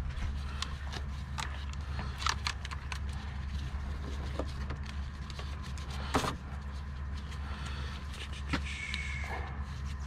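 Gloved hands coiling fiber-optic drop cable and working it into a plastic interface box: scattered light clicks and rustles, with a sharper click about six seconds in. A steady low rumble sits underneath.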